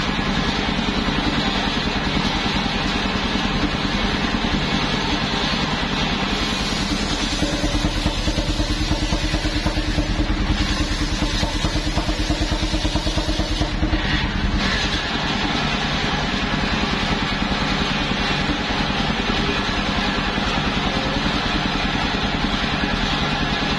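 Engine of a home-built mobile circular sawmill running steadily, driving its large circular blade. From about six seconds in, a higher, brighter sound joins it for about eight seconds as the blade cuts through a log.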